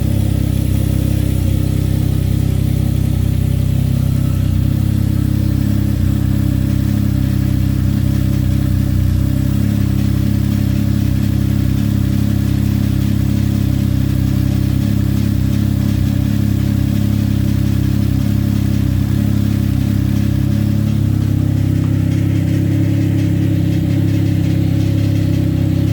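Can-Am Ryker three-wheeled motorcycle's engine idling steadily, with small shifts in pitch about 4 seconds in and near the end.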